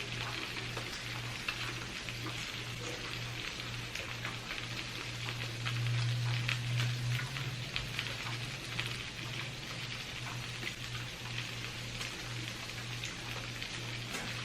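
Dense small crackles and clicks of boiled seafood being handled and its shells peeled, over a steady low electrical hum.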